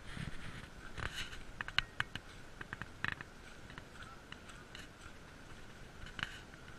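Irregular clicks, taps and scuffs of a body-worn camera and gear jostling as a hiker walks a dirt trail, over a faint steady high-pitched whine.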